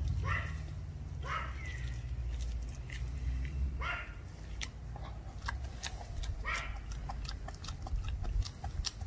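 German shepherd puppy gnawing and crunching a raw chicken quarter, bone in, with many sharp crunching clicks. A low rumble sits under it, and a short, squeaky, rising sound comes four times.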